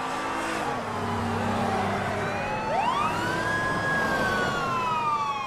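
Several police car sirens wailing at once, their pitch sweeping up and down over the hum of a car engine. Over the last couple of seconds one siren falls steadily in pitch.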